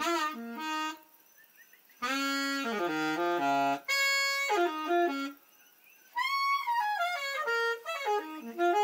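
Background music: a saxophone-like wind instrument playing a melody in short phrases, with two brief pauses.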